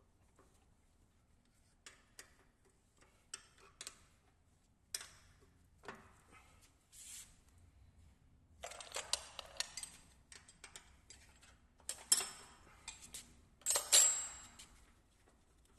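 Steel tools and die parts clicking and clinking as the 32 mm mold is taken off a small strapping-clip making machine. There are scattered single clicks at first, then busier metal clattering about nine, twelve and fourteen seconds in, loudest near the end.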